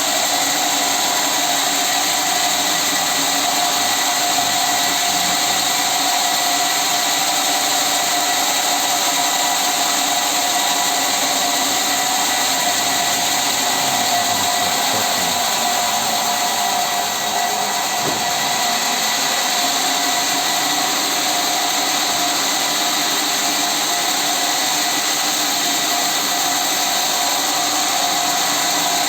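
Sawmill saw machine running steadily at constant speed, a continuous mechanical noise with steady high tones and no pauses.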